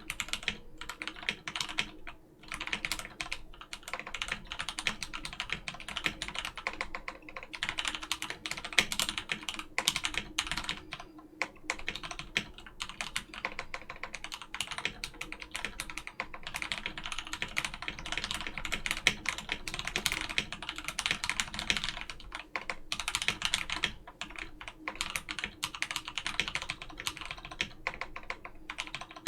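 Typing on a Keychron C1 mechanical keyboard with Krytox-lubed Gateron Brown switches on a steel plate and stock keycaps: a fast, continuous clatter of keystrokes, broken by a few brief pauses.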